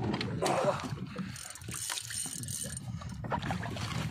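Fishing reel being worked as a hooked fish is played on a bent rod, with irregular ratcheting clicks over water sloshing against a small boat.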